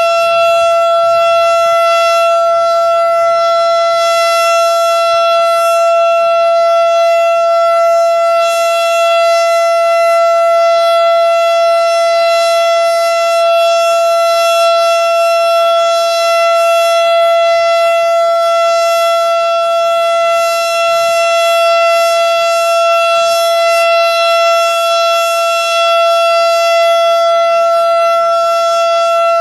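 Federal Signal STH-10 three-phase electromechanical outdoor warning siren sounding its Alert signal, a loud single tone held at a steady pitch, here for a routine test.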